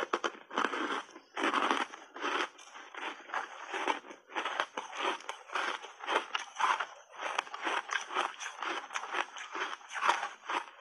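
Close-miked chewing of a mouthful of ice chunks with frozen mixed berries and matcha powder: hard, irregular crunching and crackling, several crunches a second, with no pauses.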